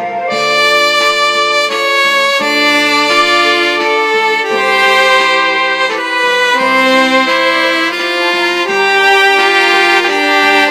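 Roland Aerophone digital wind instrument playing a two-part duet, the soprano and alto lines overdubbed and moving together in harmony in long held notes.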